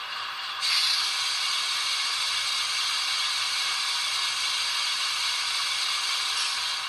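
Sanding valve sound effect from a ScaleTrains N-scale GE C44-9W (Dash 9) locomotive's DCC sound decoder: a steady air hiss that comes on about a second in and runs for about six seconds.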